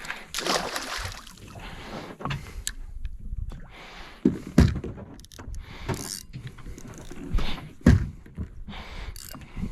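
Irregular knocks and thumps on a fishing boat, with the sharpest hits about halfway through and again near the end, over noise from the boat and water.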